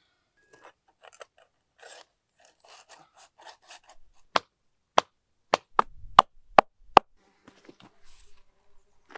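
Soft scraping and rustling, then seven sharp knocks in quick succession over about three seconds, then more light rustling.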